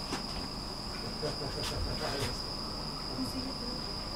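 Subway station ambience: a steady high-pitched electrical whine over a low rumble, with a few faint clicks about two seconds in.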